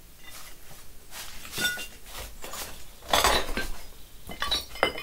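A run of clinks and knocks of hard objects, several in a row with short ringing tones, the loudest about three seconds in and just before the end.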